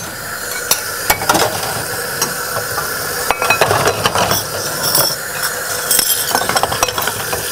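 Cups and dishes clinking in a stainless steel sink while a tap runs; the water stops suddenly near the end.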